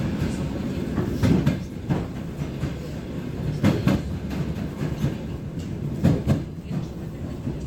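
ER9M electric multiple unit running steadily, its wheels clattering over rail joints: a continuous low rumble broken by pairs of sharp knocks about every two and a half seconds.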